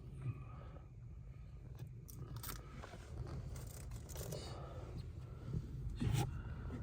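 Crinkling and tearing as the backing is peeled off the 3M adhesive tape and the magnetic phone mount is handled, with a few sharp clicks and knocks, the loudest about six seconds in. A steady low hum runs underneath.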